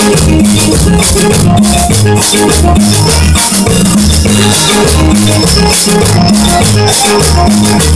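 Loud Latin dance music played live: a drum kit driving the beat over a repeating bass line, with a fast, steady rattling rhythm on top.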